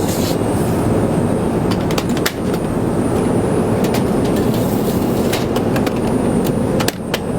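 Steady rushing cabin noise inside an Airbus A380 airliner, broken by a few sharp clicks and knocks.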